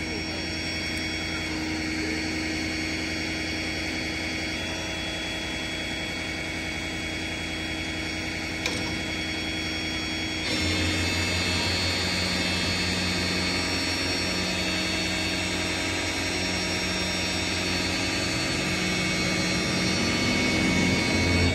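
Tow truck engine running steadily. It gets louder abruptly about halfway through, and its revs rise near the end.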